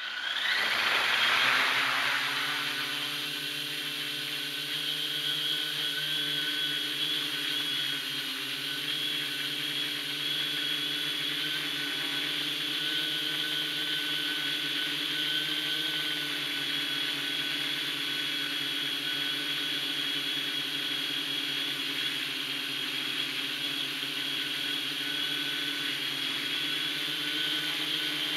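Hexacopter's six electric motors and propellers spinning up suddenly and lifting off, loudest in the first two seconds, then settling into a steady whir with a high whine as it climbs and flies. Heard close up from a camera on the frame.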